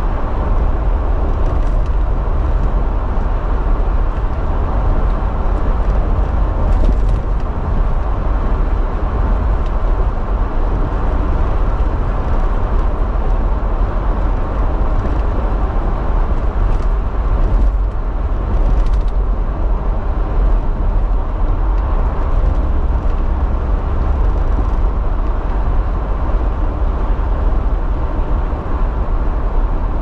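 Steady car road noise heard from inside the cabin while driving at highway speed: a deep, even rumble of tyres and engine.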